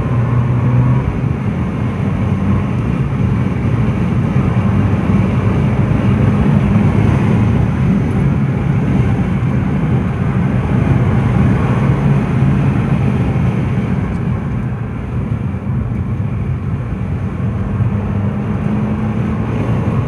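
Abarth 500 Esseesse's 1.4 T-Jet turbocharged four-cylinder engine running while the car is driven, a steady drone with road noise.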